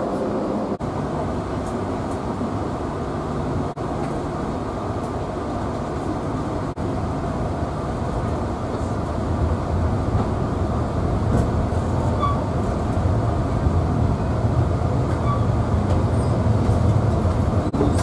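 Alishan Forest Railway narrow-gauge train running on the track, a steady rumble that grows louder about halfway through as it pulls away from the station on the mountain climb.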